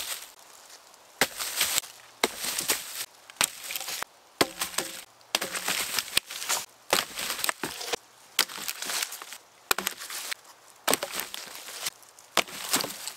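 Old wooden logs and branches being pulled from a pile and tossed aside, landing with about a dozen sharp wooden knocks at irregular intervals, with rustling of the leaf-littered forest floor in between.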